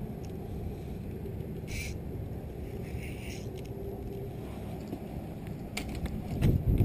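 Wind rumbling on the camera microphone. Near the end come a few sharp clicks, then a loud burst of wind buffeting and handling noise as the camera swings round.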